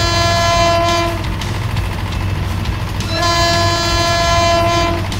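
Train horn sounding two long blasts over a steady low rumble. The first blast ends about a second in; the second starts about three seconds in and lasts about two seconds.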